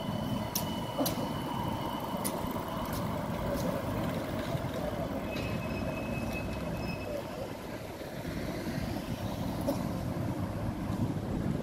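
West Midlands Metro CAF tram pulling away on street track, a high steady whine from its drive for the first few seconds over a constant hum, with a few sharp clicks. A car drives past near the end over steady city traffic noise.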